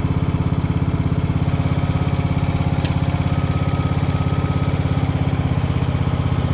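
Craftsman riding lawn mower's engine running steadily at low throttle with an even, rapid firing beat. A single sharp click sounds just before three seconds in.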